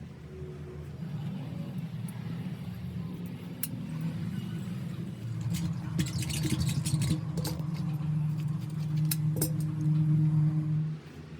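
A motor running steadily with a low hum that grows louder, then drops sharply near the end. Clusters of metallic clicks and clinks come through in the middle.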